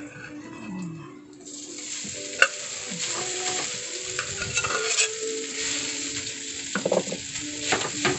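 Cooked rice being added to a hot oiled frying pan for sinangag (Filipino garlic fried rice): it starts sizzling steadily about a second and a half in. Sharp knocks of a metal spoon against the aluminium pot and the pan, the loudest about two and a half seconds in, as the rice is scooped over.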